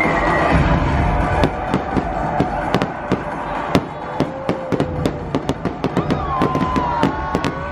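Fireworks popping and crackling in quick succession, several sharp reports a second, over loud show music.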